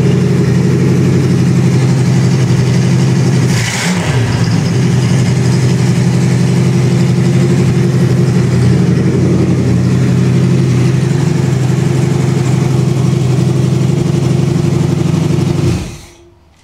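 Oldsmobile 350 V8, freshly rebuilt with a cam change, running steadily on an engine run stand for break-in. Its pitch dips briefly about four seconds in, and the engine shuts off near the end.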